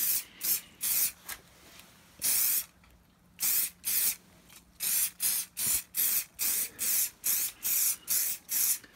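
Aerosol can of Muc-Off Fabric Protect spraying in short hissing bursts onto a fabric jacket. The bursts stop briefly about three seconds in, then come quickly, about three a second, toward the end.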